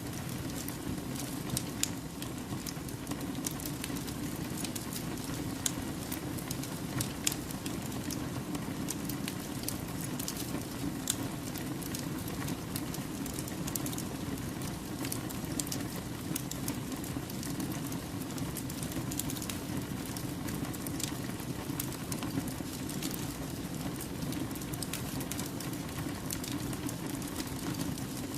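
Wood fire burning steadily, a low rushing of flames under frequent sharp crackles and pops from the burning logs.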